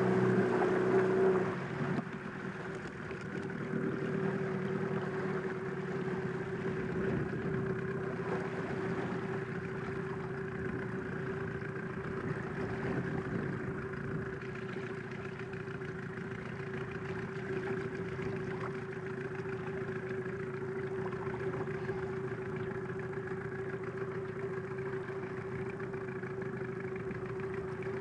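Small outboard motor running steadily at low trolling speed, one even engine note. It is louder for the first couple of seconds, then settles a little lower and stays steady.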